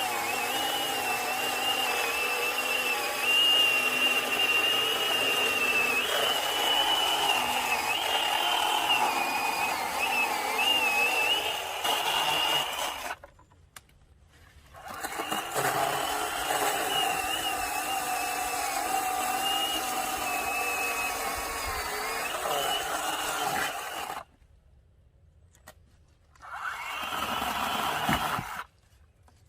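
A WORKSITE 20-volt brushless cordless chainsaw running and cutting, its electric motor giving a steady whine whose pitch wavers under load. It stops about 13 seconds in, runs again for about nine seconds, stops, then gives a short final burst near the end.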